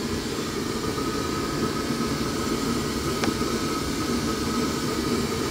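Steady low mechanical whir, like a fan or air-conditioning unit running, with a faint high steady tone over it. A single short click a little past halfway.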